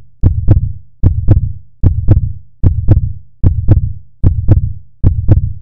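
Heartbeat sound effect: loud paired lub-dub thumps repeating steadily, one beat about every 0.8 seconds, seven beats in all.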